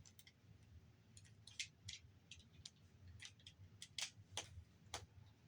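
Faint, irregular light clicks and taps, about a dozen, from small parts of a Blu-ray player being handled during disassembly. The sharpest clicks come about four seconds in.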